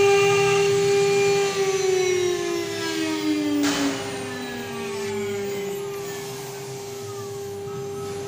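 CNC router spindle whining with a steady tone over a brass engraving job. From about one and a half seconds in, a second whine falls in pitch and the sound gets quieter, as the spindle motor slows. There is a brief hiss a little before the middle.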